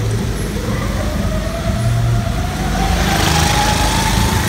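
Motor vehicle engine accelerating on the street, its pitch climbing steadily and growing louder towards the end.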